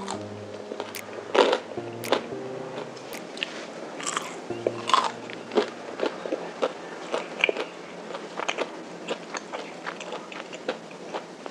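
Person biting and chewing a KFC Mini Chizza, whose crispy breaded fried-chicken base crunches in many small crackles, with a few louder bites along the way.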